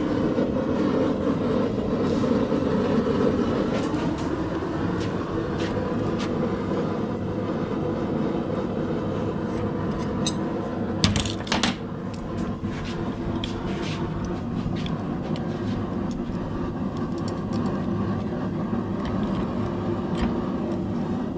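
Forge running with a steady rushing noise, with scattered metal clinks as a hot steel bar is twisted with a pipe-wrench twisting tool; a louder clatter of metal comes about eleven seconds in.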